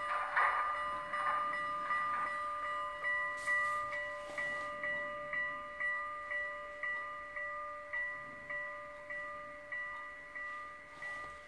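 A model steam locomotive's DCC sound decoder rings a locomotive bell through the model's small speaker, about two strokes a second. The ringing fades gradually toward the end.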